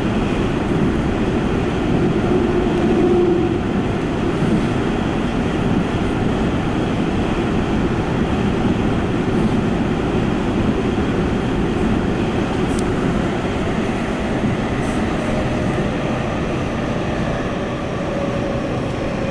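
Subway commuter train running at speed between stations, heard from on board: a steady rumble of wheels on the rails.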